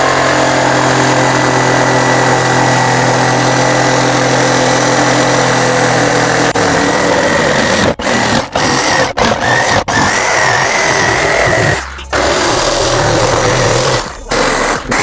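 Stanley SJ45 jigsaw running at medium-to-high speed with a wood-cutting blade, sawing through an MDF board: steady, loud machine noise with several brief breaks in the second half.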